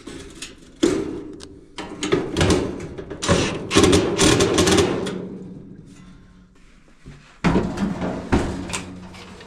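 Clunks, knocks and rattles of washer parts and panels being handled during reassembly, in two bouts with a short lull between.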